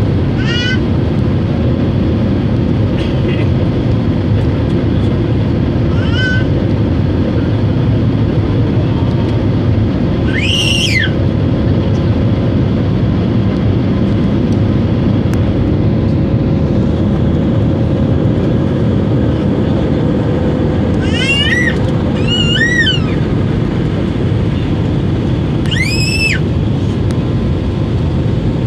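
Airliner jet engines running steadily at climb power, heard from inside the cabin as a loud, even roar with a faint steady hum. About six short high cries that rise and fall in pitch break in over it at intervals.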